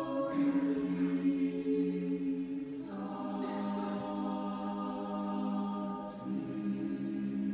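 Mixed choir singing wordless, sustained a cappella chords. Each chord is held for about three seconds before the voices move to the next.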